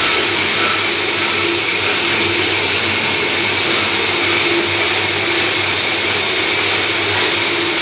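Metal lathe running steadily with its chuck and workpiece spinning: an even mechanical hum and hiss.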